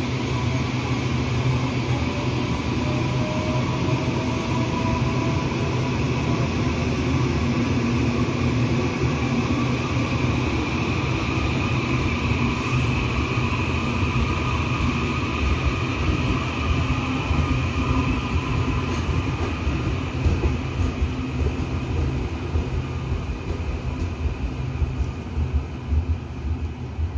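Taiwan Railway EMU800 electric multiple unit pulling out of the station: a steady rumble of wheels on rail with a whine that rises in pitch over the first few seconds as it gathers speed. The sound fades over the last few seconds as the train moves away.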